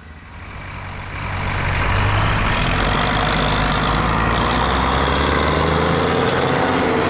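Large Schlüter tractor's diesel engine running, growing louder over the first two seconds and then holding a steady, heavy drone.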